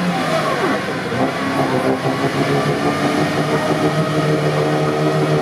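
UAZ 4x4's engine revving hard as it drives through deep, muddy water, its pitch rising and falling in the first couple of seconds and then holding steady.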